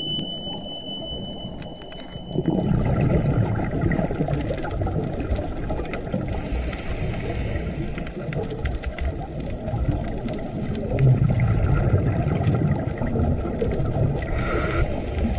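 Muffled underwater rumble and bubbling heard through a waterproof camera housing while scuba divers breathe, their exhaled bubbles rising. A steady high tone stops about two and a half seconds in, and a short hiss comes near the end.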